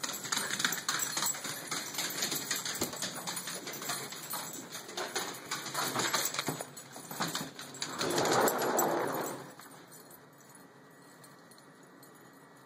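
Dogs' claws clicking and scrabbling on a hard floor as they rush to the door. Around eight seconds in comes a louder rushing scrape lasting about a second and a half as the glass door to the deck is opened.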